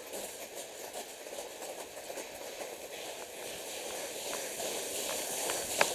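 Runners' footsteps crunching on loose gravel under a steady hiss that slowly grows louder, with one sharp click near the end.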